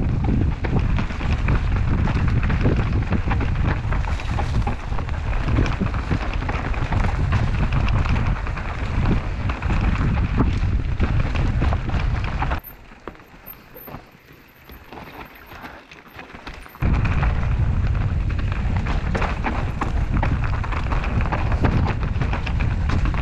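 Wind buffeting the microphone of a mountain bike's point-of-view camera on a dirt singletrack descent, mixed with tyre noise and the rattle of the bike over roots and stones. About halfway through, the rumble cuts out suddenly for about four seconds, then comes back just as suddenly.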